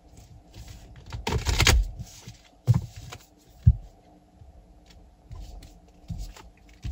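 Cards being handled and laid down on a cloth-covered table: a loud rustle of cards about a second in, then two short soft knocks as cards are tapped down, with light clicks and taps around them.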